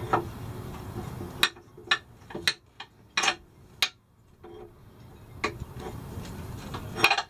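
Metal hand tool clicking, knocking and briefly scraping against the stainless steering pedestal's housing as the hydraulic helm pump's bolts are worked loose: about eight sharp, irregular clinks over several seconds.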